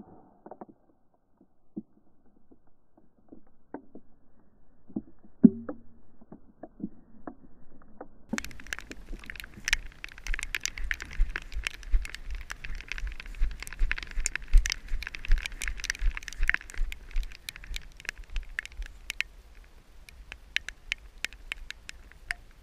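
Rustling and footstep noise from a body-worn action camera as the wearer walks through wet grass: a few faint scattered clicks at first, then from about eight seconds in a dense, irregular crackle of brushing and steps over a low rumble, thinning out near the end.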